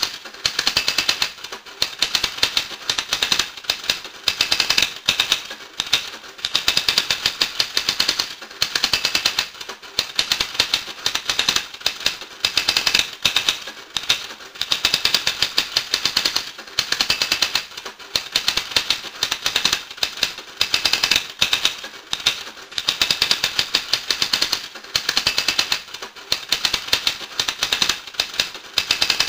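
Rapid, dense clicking: a clatter of many sharp ticks that swells in repeating bursts every second or two.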